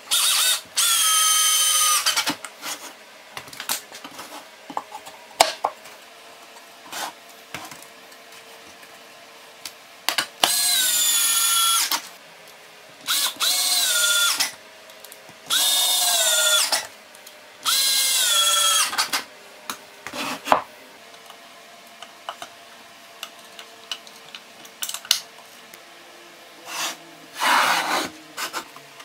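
Cordless drill/driver driving screws into plywood in five short runs of a second or two each. The motor whine drops in pitch at the end of each run as the screw seats. Clicks and knocks from handling the wood come between the runs.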